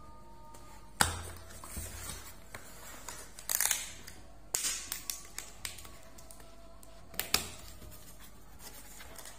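Packing tape on a cardboard box being slit with a pen tip and torn, with sharp taps and scrapes on the cardboard and the flaps pulled open. A loud sharp snap about a second in, a rasping tear in the middle, and two more sharp clicks near the end.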